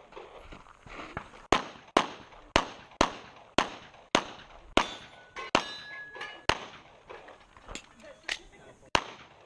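A rapid string of handgun shots, about two a second, with steel targets ringing after some hits in the middle of the string.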